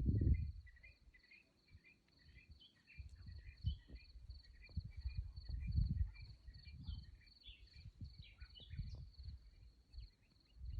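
Night insects: a continuous high-pitched cricket trill, with repeated short chirps at a lower pitch that come about twice a second in the first half and then thin out. Low rumbling gusts come and go underneath, loudest right at the start.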